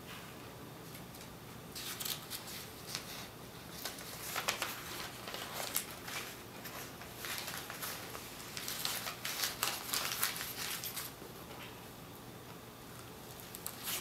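White tea-ceremony paper (kaishi) rustling and crinkling as it is handled and folded by hand, in several short spells of crackles.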